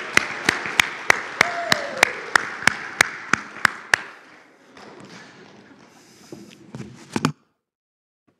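Congregation applauding in a large hall, with one set of sharp, evenly spaced claps about three a second over the top; the clapping dies away about four seconds in, with a brief cheer in the middle. Faint shuffling follows, then the sound cuts off abruptly about seven seconds in.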